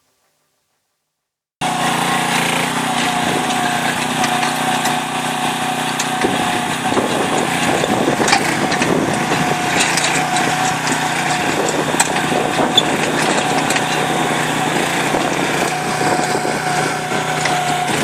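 Small engine of a Predator 205 towable mini excavator running steadily, with a few sharp clicks and knocks on top. It starts abruptly about a second and a half in, after silence.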